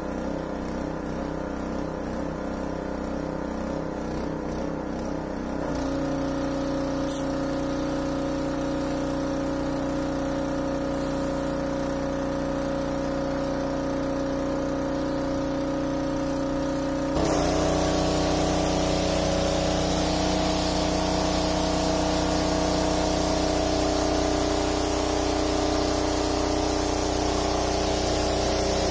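A jet wash (pressure washer) running steadily, its motor giving a steady hum that shifts in pitch about six seconds in. From about seventeen seconds in, a louder hiss of the high-pressure water jet blasting dirt off the narrowboat's steel hull joins it, heard close up.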